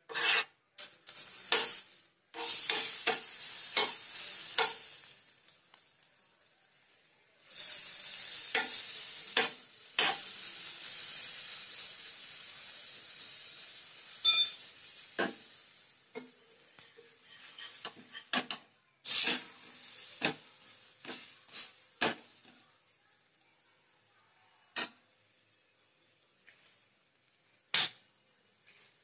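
An aloo paratha frying on a dosa tawa, sizzling in hot fat in several spells while a steel spoon spreads the fat, clicking and scraping against the pan. Near the end the sizzling dies down, leaving only an occasional tap.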